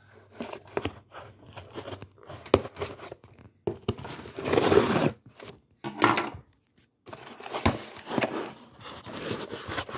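A pocket knife slitting the packing tape on a cardboard box, and the tape and cardboard tearing and scraping as the flaps are worked open, in irregular strokes with short pauses; the longest tear lasts over a second, about four seconds in.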